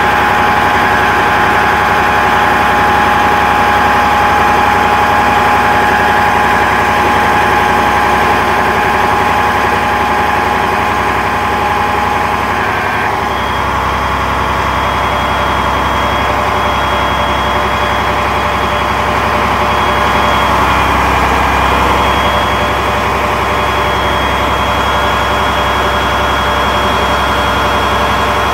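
Crane truck's engine running steadily while the crane hoists a motorbike, with steady high whines over it. About 13 seconds in the sound shifts to a heavier low rumble with a different high whine.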